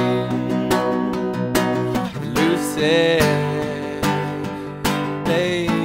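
A song played on strummed acoustic guitar, with a man's voice holding a wavering note about halfway through.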